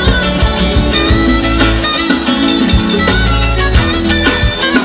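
Live band playing an instrumental passage of a Ugandan pop song, with a steady drum beat, held bass notes and melodic instruments over the top.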